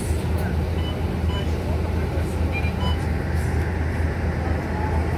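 Bus engine idling at a bus stop: a steady low rumble, with a few faint short high chirps over it.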